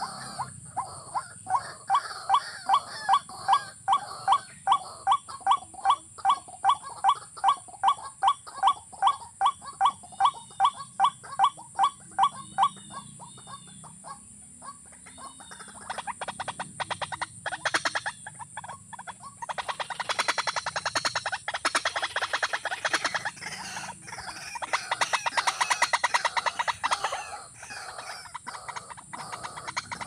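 White-breasted waterhens calling. First comes a long run of loud, evenly repeated notes, a little under three a second, which stops about halfway through. After a short lull comes a faster, rasping chatter that runs on with a brief break.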